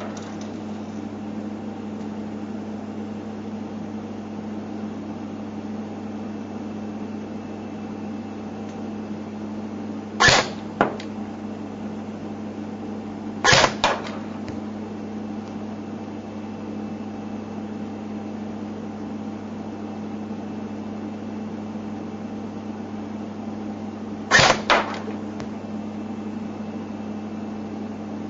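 Real Sword Type 97 airsoft electric gun firing three times, each time two quick sharp cracks, over a steady low hum.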